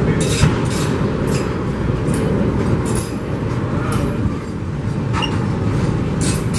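Train passing close by: a loud, steady rumble with scattered sharp clicks at uneven intervals.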